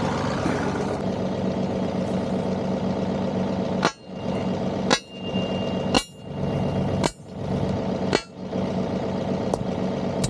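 Five sharp strikes about a second apart, from a tool hammering river stones in around a fence post; one strike leaves a brief high metallic ring. Under them, the John Deere 2038R compact tractor's three-cylinder diesel idles steadily.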